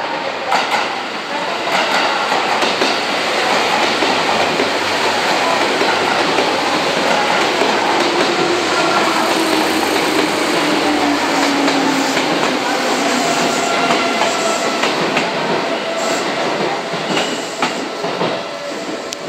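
A Seibu 10000 series "New Red Arrow" limited express train running into the station and slowing to a stop. Its wheels clatter over the rail joints, and a whine falls in pitch as it slows.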